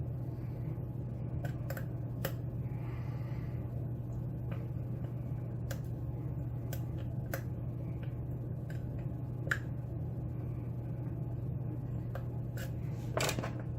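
Lock pick working the pins of a pin tumbler lock under tension: scattered, irregular small clicks and scrapes of pins setting and being lifted, over a steady low hum.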